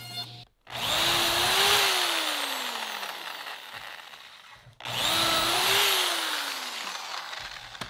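Corded electric drill boring pocket holes through a Kreg pocket-hole jig into pine, with a stepped pocket-hole bit. It runs twice, about four seconds and then three seconds, and each time its pitch rises briefly and then sinks slowly as the bit bores in.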